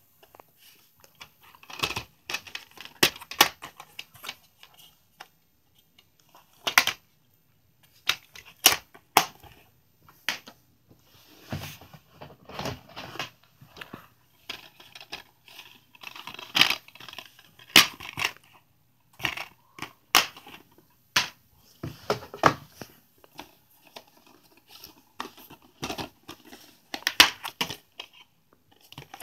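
Plastic DVD cases being handled: irregular clicks and snaps as cases are turned over and a case is opened, with some rustling in between.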